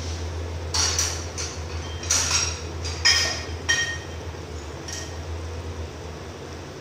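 A metal utensil clinking and knocking against an aluminium cooking pot, about six strikes spread over four seconds, some of them ringing briefly, over a steady low hum.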